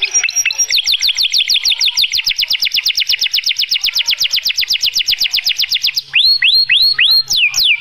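White male canary singing: a long, fast trill of about ten quick falling notes a second, then, about six seconds in, a switch to slower swooping notes.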